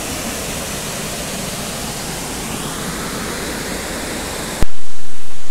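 Hooker Falls waterfall rushing steadily. About four and a half seconds in, a sharp click cuts it off, and a louder low rumble with much less hiss follows.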